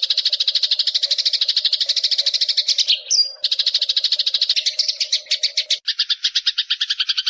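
Burung gereja (Eurasian tree sparrow) chatter: a fast, even run of short high chirps, about a dozen a second. About three seconds in it breaks briefly for a single short whistled note, and near six seconds in the chatter changes to a different, lower-reaching trill.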